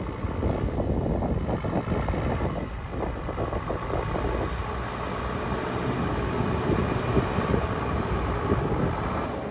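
An engine running steadily, a low rumble with a fast even pulsing.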